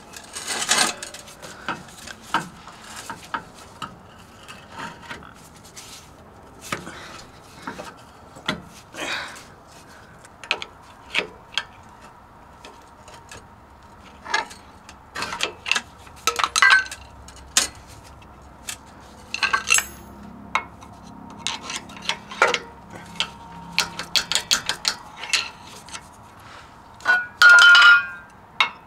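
Irregular metal clinks and knocks from hand tools and a shock absorber's mounting hardware being worked under a Ford F-150, with a louder cluster and a brief ringing tone near the end.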